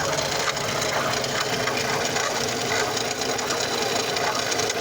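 Fiat Palio's 1.4 Fire four-cylinder engine running steadily with a strange noise mixed in, which the owner suspects comes from the water pump.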